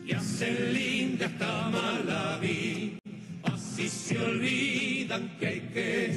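Argentine folk dance music with a voice singing over it, accompanying a couple's handkerchief dance. The sound drops out for an instant about three seconds in.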